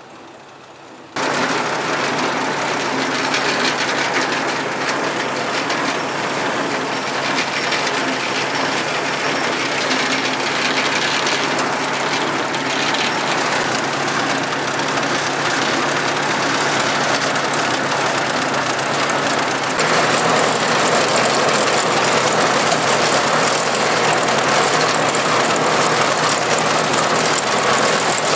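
Ford Jubilee tractor's four-cylinder gasoline engine running as the tractor is driven, heard from the driver's seat. It starts suddenly about a second in and gets a little louder near the end.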